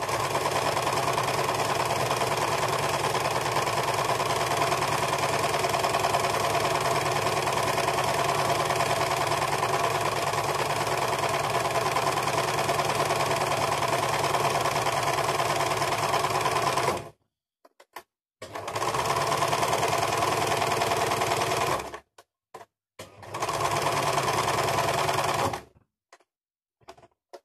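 Electric household sewing machine stitching mosquito netting. It runs steadily for about seventeen seconds, then in two shorter runs of a few seconds each, stopping abruptly between them.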